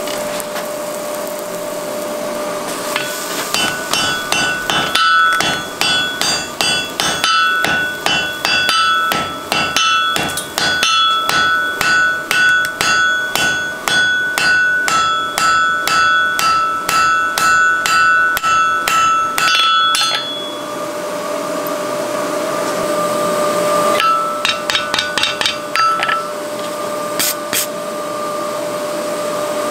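Hammer blows on a white-hot wrought-iron bar lying on the anvil at welding heat, forging the cleft weld together: a fast run of ringing strikes from about three seconds in to about twenty, then a short second run near the end. A steady hum fills the gaps between the runs of blows.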